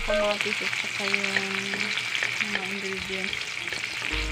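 Onion, garlic and tomato sizzling in hot oil in a metal wok, stirred and pushed around with a wooden spatula: a steady crackle with small pops.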